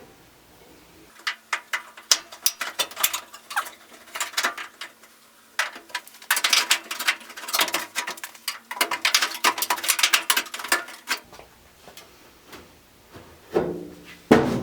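Putty knife scraping and clicking against the seam of a Samsung gas dryer's steel top panel as it is worked in to pry the lid up. Irregular scrapes and taps come in clusters, busiest in the middle.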